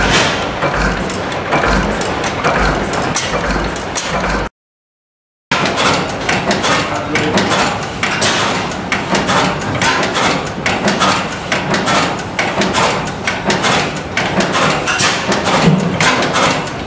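Large antique stationary gas engines running, with clattering valve gear and rapid mechanical clicks and knocks over a steady machinery din, and a deep rhythmic thump in the first few seconds. The sound cuts out for about a second some four and a half seconds in, then the clatter resumes.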